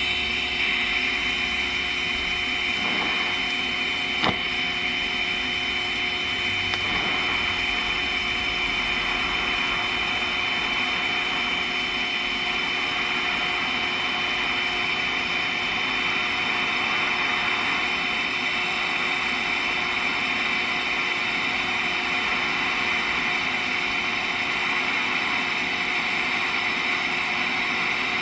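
Steady hiss and buzz of a DC TIG welding arc with the shielding gas on, run without filler rod while the torch is raised and lowered to vary the gap between tungsten and metal. A single short click about four seconds in.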